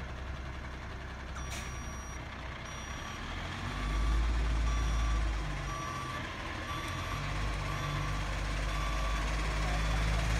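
Reversing alarm on a rear-loader garbage truck, beeping steadily from about a second and a half in, over the truck's diesel engine rumbling, which grows louder about four seconds in.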